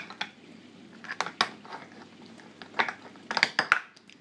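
Light plastic clacks and knocks in a few quick clusters as a Congo African grey parrot works plastic stacking cups and rings with its beak.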